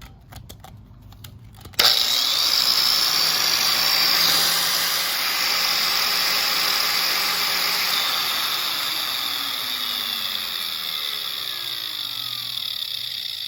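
Old Makita 9501B 4-inch angle grinder switched on about two seconds in and running free with a steady high whine, its pitch falling near the end as it winds down. The owner finds this old made-in-Japan grinder quieter than his new one.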